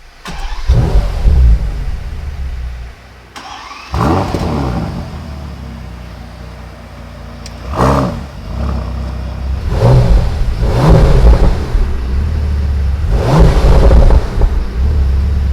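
Bentley Continental GT's 6.0-litre W12 engine started in Sport mode with the exhaust mode on: a loud start-up flare that settles to idle, then about five throttle blips that rise and fall over the steady idle.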